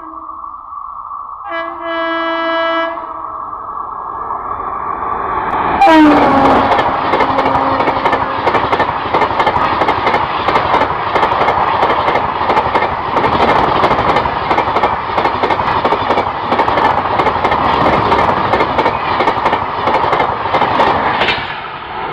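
A train horn sounds in a short blast, then a train passes close at speed about six seconds in: a sudden loud rush with a horn note falling in pitch as it goes by, and dense rapid clicking of wheels over the rail joints that fades near the end.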